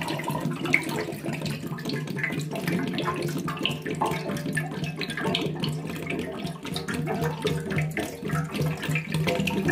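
Water pouring and splashing out of a fabricated aluminium coolant header tank into a stainless steel sink as the tank is emptied, with a low steady hum underneath.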